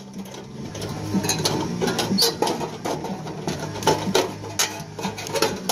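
Hand tin snips cutting thin aluminum eavestrough: an irregular series of sharp metallic snips with the crinkle of the sheet metal.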